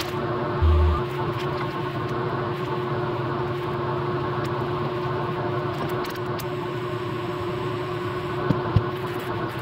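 A small electric machine running with a steady hum. A short low thump comes about a second in, and two sharp clicks come near the end.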